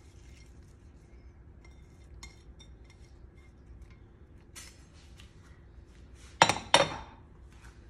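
Two sharp clinks about half a second apart, a white china plate being put down on a hard surface, about six seconds in. Before them only faint small ticks and rustles as chopped cilantro is scattered by hand over the rice.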